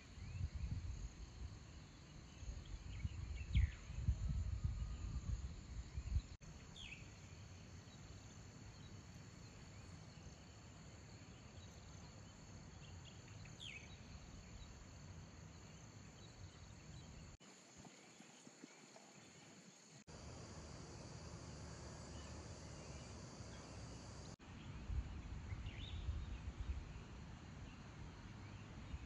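Steady high-pitched drone of an insect chorus, with a few short descending bird chirps. A low rumble swells in the first few seconds and again near the end.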